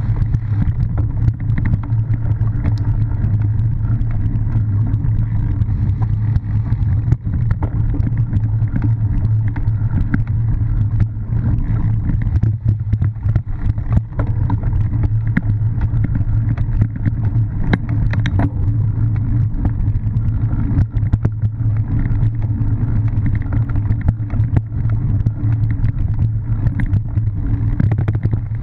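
Steady rumble of wind and ride vibration on a bike-mounted camera as a cyclocross bike runs over bumpy grass, with frequent small rattles and knocks from the rough ground.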